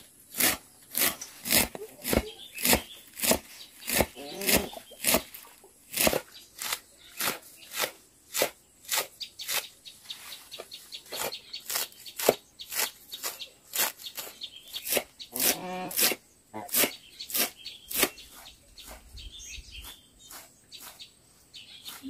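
A cleaver chopping a pile of leafy greens, in steady chops about two a second that stop a few seconds before the end.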